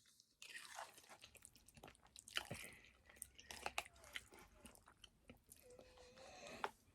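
Faint chewing of spaghetti with meat sauce: a stream of soft, wet mouth clicks.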